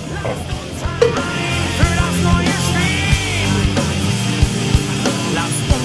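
Rock band playing hard: distorted electric guitar, bass and a drum kit, with a shouted lead vocal.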